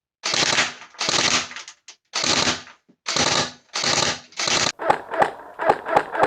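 Classic Army Nemesis double-barrel M4 airsoft rifle firing: six short bursts of rapid fire, each about half a second long, then sharp single shots about twice a second near the end.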